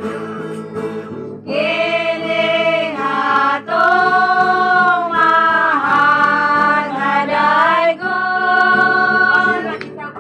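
Live singing accompanied by strummed acoustic guitars; from about a second and a half in, the voice holds long, sliding notes.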